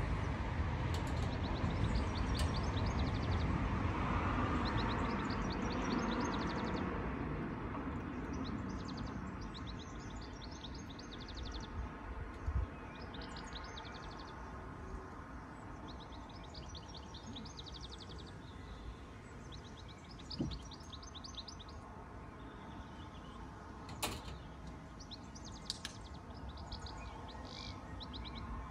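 A small songbird sings short, rapid trilled phrases over and over, over a low traffic rumble that fades away during the first several seconds. A few sharp clicks stand out, the loudest about 24 seconds in.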